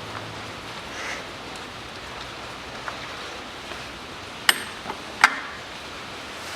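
Metal tools clinking on engine parts during hand work on a cylinder head: three sharp metallic clinks between about four and a half and five and a quarter seconds in, the last one ringing briefly, over a steady hiss.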